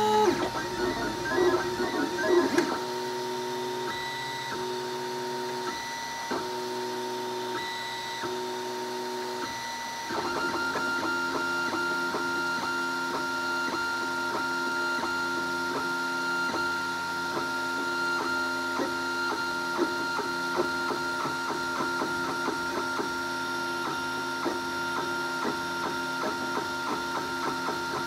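Renkforce RF100 3D printer printing PLA: its stepper motors whine in pitched tones that change with each head move, over a steady fan tone. For the first ten seconds or so a few longer moves repeat about every two seconds; then the moves turn quick and short with constant changes of direction and the sound gets a little louder.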